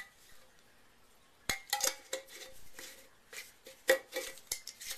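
A glass jar and its lid being handled: sharp clinks and taps, a cluster a little over a second in and another near four seconds in, some with a brief ring.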